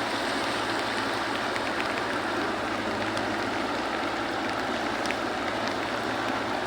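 Steady rushing water noise from heavy monsoon rain and floodwater, with a faint low hum underneath.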